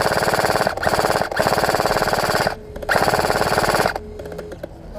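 Airsoft rifle firing on full auto: long bursts of rapid shots, four in a row with brief gaps, stopping about four seconds in.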